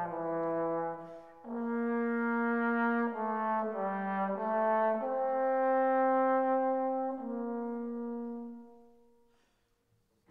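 Background music of slow, held chords changing every second or two, fading away near the end.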